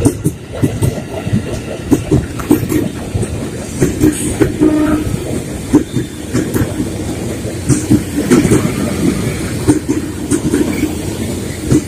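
A KRL Commuter Line 205-series electric multiple unit passing close by, with a steady rumble and its wheels clacking repeatedly over the rail joints.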